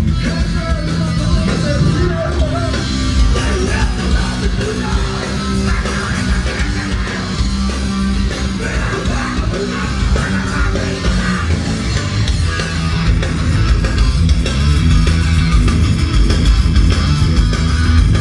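Loud rock music with guitar, dense and continuous with heavy bass.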